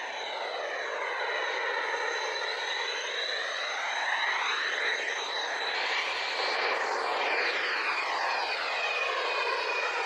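F-16 fighter jets taxiing, their jet engines giving a steady high whine over a rushing noise. About six seconds in, the whine changes pitch as an F-16 taxis close by.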